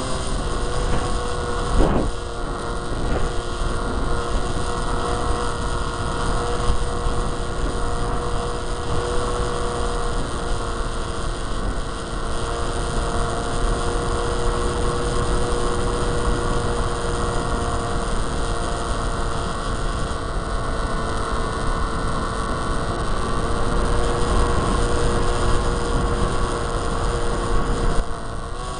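Electric motor and propeller of a Micro Interceptor RC plane running at a steady pitch, heard from its on-board camera, with wind buffeting the microphone.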